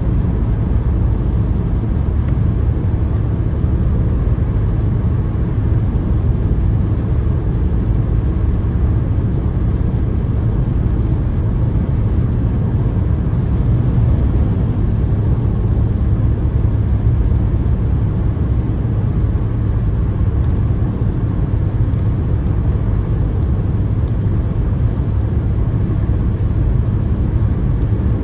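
Steady low rumble of road and wind noise inside a car cruising at motorway speed.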